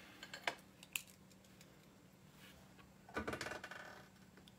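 A few light clicks and taps on a computer keyboard, then a louder patch of clattering and rustling about three seconds in.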